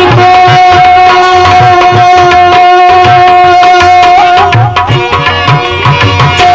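Instrumental interlude of a live Gujarati devotional bhajan. A melody instrument holds one long note for about four seconds, then plays shorter notes, over a steady hand-drum rhythm.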